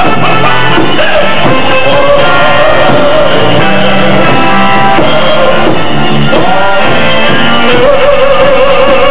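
Live band music with a male vocalist singing into a microphone, backed by electric guitar, drums and keyboard. He holds a long note near the end.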